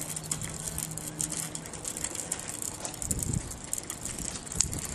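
Plastic wheels of a toy doll stroller rattling and clattering as it is pushed along a concrete sidewalk. A low steady hum runs under it for the first second and a half.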